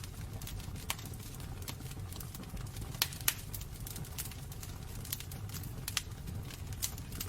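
Wood fire burning in a fireplace, crackling with irregular sharp pops over a steady low rumble of flames; two of the loudest pops come close together about three seconds in.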